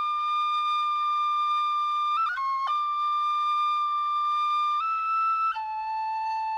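Solo flute-type woodwind playing a slow melody of long held notes, with quick ornamental flicks between them as the tune steps to a new note.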